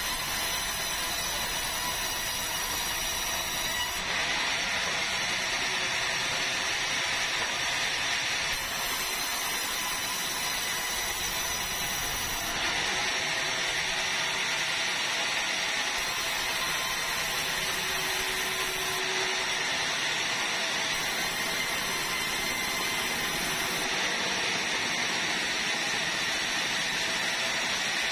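Large sawmill band saw running steadily while sawing red meranti timber into boards: an even, loud machine noise with a faint steady high whine.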